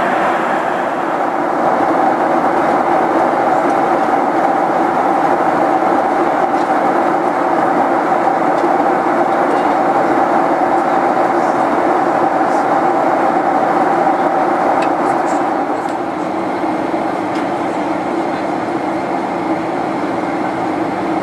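Steady jet engine and airflow noise inside a Boeing 737 passenger cabin. A loud, even roar with a hum in it, which gets a little quieter about sixteen seconds in.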